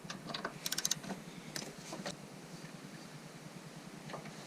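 Hand ratchet clicking in short bursts as a fender bolt is worked loose, with a quick run of clicks just under a second in and scattered light metal clicks around it.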